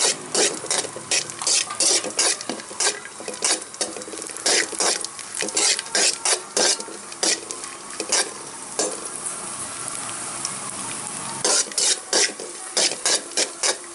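Perforated steel ladle scraping and clinking against an aluminium kadai, about two strokes a second, over the steady sizzle of cashews and raisins frying in ghee. The scraping stops for a couple of seconds about two-thirds through, leaving the sizzle.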